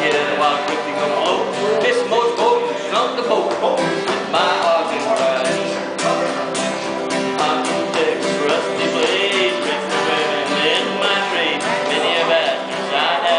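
Live Cajun music with guitar, a band playing a steady, upbeat instrumental passage.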